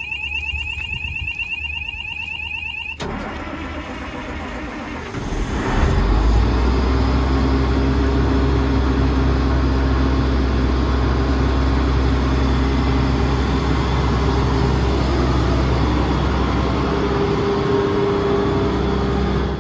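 Atlas Copco XAHS900 diesel air compressor starting by itself after its pre-start checks. A warbling warning buzzer sounds for about three seconds and cuts off. The Caterpillar diesel engine then turns over and, about five seconds in, comes up to a loud, steady run.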